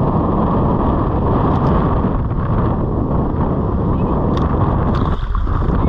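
Strong wind buffeting the microphone: a steady, loud rumbling rush, with a couple of faint clicks near the end.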